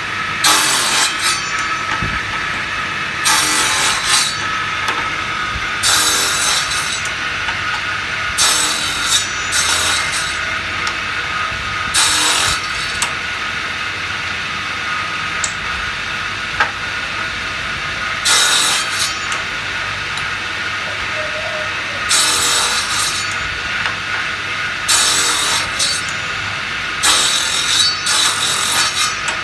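A woodworking tool cutting wood in short scraping bursts every few seconds, over a steady machine hum.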